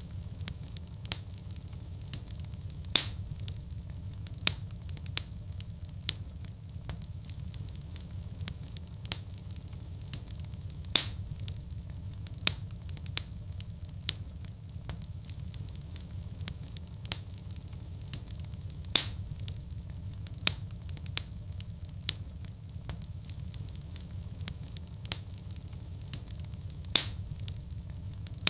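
Fireplace fire burning with a steady low rumble and constant crackling. Sharp pops stand out, the loudest coming about every eight seconds.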